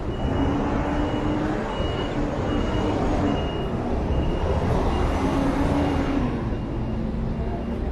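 City street traffic noise: the rumble of vehicles on the road, swelling from about four to six seconds in as one passes, with a short high-pitched beep repeating over and over.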